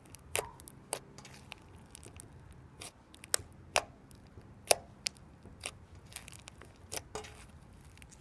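Foam bead slime being squished and pressed by hand, giving irregular sharp pops and crackles, about a dozen, the loudest a little past halfway.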